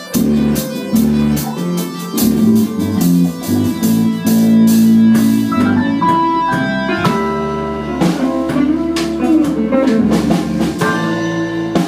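A band playing live: bass guitar and guitar over a drum kit, with frequent cymbal hits.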